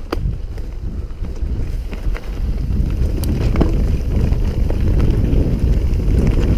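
Wind buffeting the microphone of a fast-descending mountain bike, mixed with the rumble of its tyres on a rough dirt trail and a few sharp knocks and rattles from the bike over bumps. The rushing noise grows louder as speed builds.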